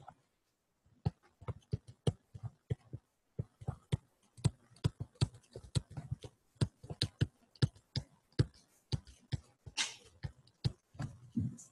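Stylus tapping and scratching on a tablet screen during handwriting: an uneven run of sharp clicks, roughly four a second, starting about a second in.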